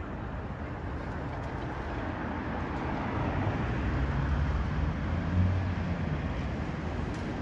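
City street traffic: a steady wash of road noise with a vehicle engine passing close, its low hum building to a peak about five seconds in and then easing off.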